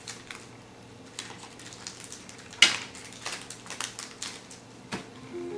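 Trading-card pack wrapper crinkling as it is opened, and cards clicking down on a glass tabletop: scattered rustles and light clicks, the sharpest about two and a half seconds in.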